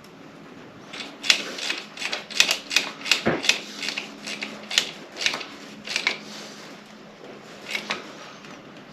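A run of light, irregular clicks and taps from hands pulling off and pushing on small spade connectors on wiring, over a faint steady hum.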